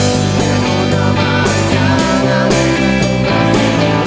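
Rock band playing live, with guitar and bass under steady drum and cymbal hits.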